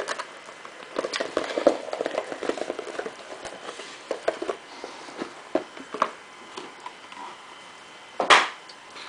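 Cardboard trading-card mini-boxes being slid out of their display box and set down on a table: rustling and scraping of cardboard with light knocks. A louder short scrape comes near the end.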